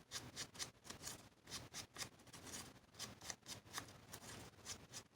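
Faint, irregular rustling and light taps of paper pieces being handled and worked on a craft desk.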